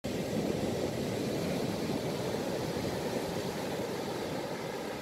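Heavy surf breaking on a sandy beach: a steady, deep rushing noise of waves.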